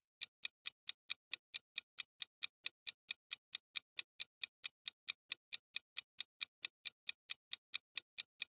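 Clock-style ticking sound effect counting down a countdown timer: short, even ticks, just over four a second.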